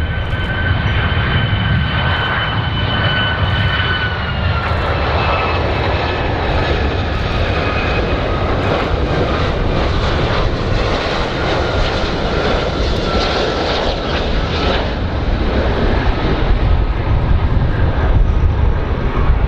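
Twin turbofan jet engines of a Boeing 757 on landing approach: a steady roar with deep rumble and a high fan whine that drops in pitch about four seconds in and again a few seconds later, fading out toward the end.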